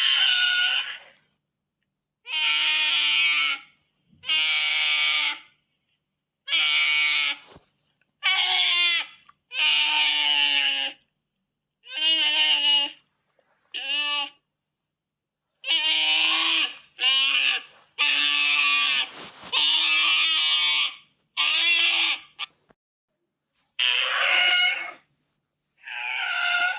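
A made-up creature sound effect for a 'baby toxic spider': about fifteen shrill, wavering screeching cries, each about a second long, with short silent gaps between them.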